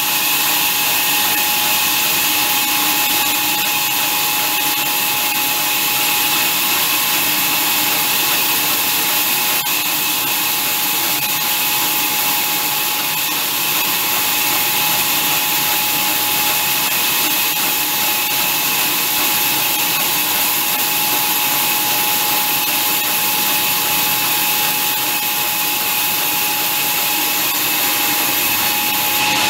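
Horizontal band sawmill running steadily as its blade saws lengthwise through a large log, a constant hiss of sawing with a steady whining tone over it.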